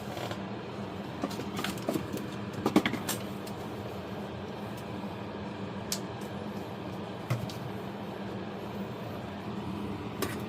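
Steady low mechanical hum, like a bench blower or fan running, with a few small clicks and taps, a cluster of them about a quarter of the way in.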